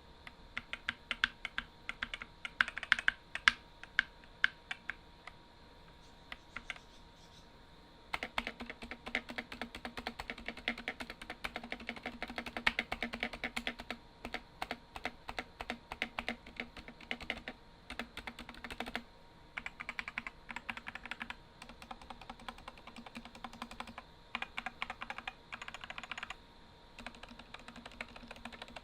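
Typing on an Epomaker SK64 keyboard with stock, unlubed Gateron optical red linear switches and ABS keycaps: quick runs of key clacks, with a lull of a few seconds about five seconds in, then a long fast run and shorter bursts.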